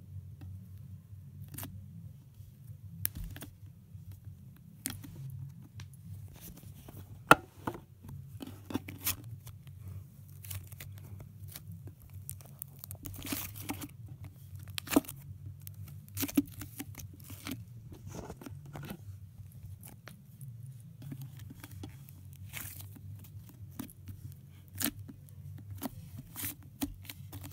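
Fingers squeezing and kneading butter slime: irregular soft crackles and little pops, one sharper click about seven seconds in, over a steady low hum.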